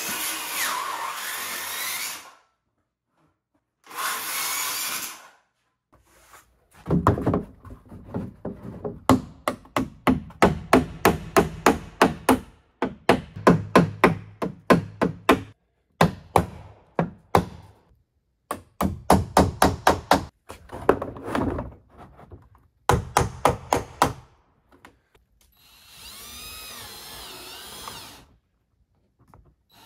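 A cordless circular saw cuts corrugated Ondura roofing in two short passes. Then a hammer nails the roofing down onto the wooden roof in several runs of quick, sharp strikes, about four a second. Near the end a cordless drill whirs briefly as it drives into the roofing.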